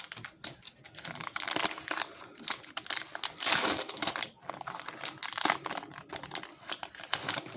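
Foil booster-pack wrapper crinkling as it is opened and handled, a dense crackle of small clicks, loudest about three and a half seconds in.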